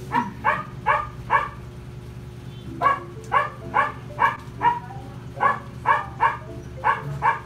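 A dog barking repeatedly in quick runs of short, sharp barks, about two to three a second, pausing twice, over a steady low hum.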